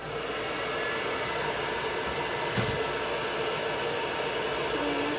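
Blow dryer running with a steady rushing hiss and an even hum, coming on right at the start.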